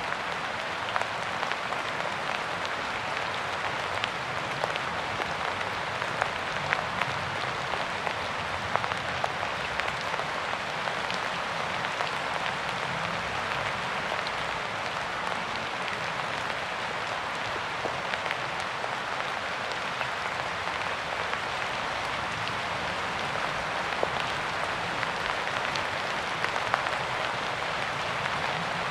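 Steady rain falling on a surface, an even hiss with many separate drop ticks scattered through it.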